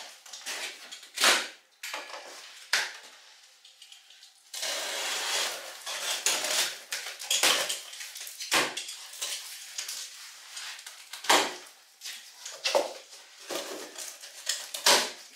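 A cardboard box being unpacked: a knife slitting the packing tape, the cardboard flaps scraping and rustling, and irregular clinks and knocks of metal parts inside the box.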